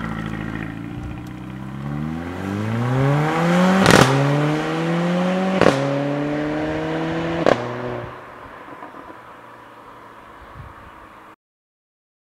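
Sports car engine accelerating hard, rising in pitch through three upshifts about two seconds apart, each marked by a sharp crack. It then drops away and fades, cutting to silence near the end.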